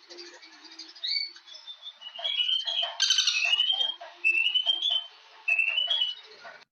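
Birds singing: a string of short rising chirps, repeated every second or so, with a busier flurry of quick notes near the middle. The sound cuts off suddenly at the end.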